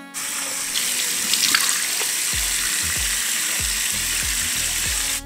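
Water running steadily from a bathroom sink tap and splashing as hands rinse a face. A low bass beat of background music comes in about two seconds in.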